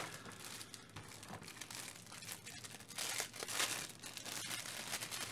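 Thin clear plastic bag crinkling as hands handle it to unwrap a remote control, with louder crackles about three seconds in.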